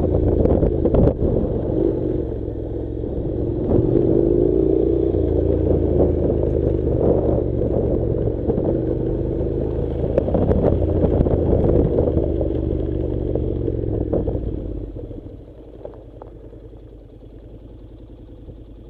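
Honda NC700 parallel-twin motorcycle engine pulling along a gravel track, its pitch rising and falling with the throttle, with stones rattling and crunching under the tyres. About fifteen seconds in the engine drops to a much quieter, steadier run.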